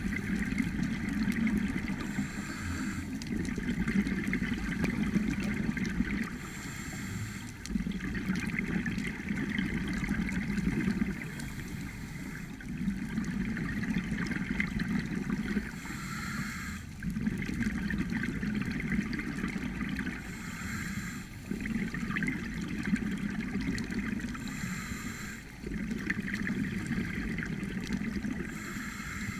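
Scuba diver breathing underwater through a regulator: a brief hiss on each inhale, then a longer rush of exhaled bubbles. A breath comes about every four to five seconds.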